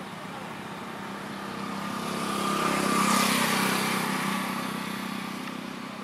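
A road vehicle passing by, growing louder to a peak about three seconds in and then fading away.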